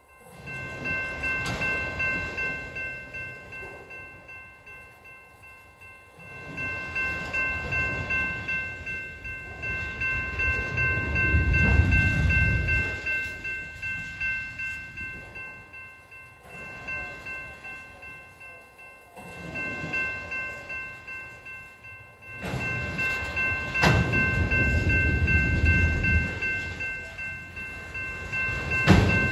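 Freight train of autorack cars rolling past, its wheels rumbling and clacking on the rails. The rumble swells and fades every few seconds, over a steady high-pitched ringing.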